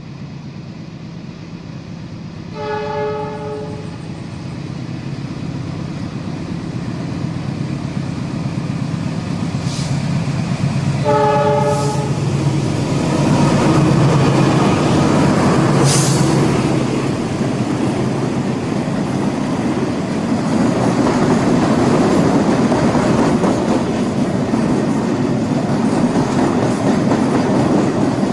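Diesel container freight train approaching and passing: the locomotive horn sounds twice, about a second each, near the start and about eleven seconds in, over a low engine rumble that grows louder. The lead locomotives then go by and the container flatcars roll past with steady wheel-on-rail noise and a few sharp clanks.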